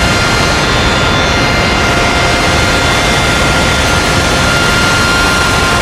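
Car wash air dryer blowers running: a loud, steady rush of blown air with a few faint, steady whining tones in it.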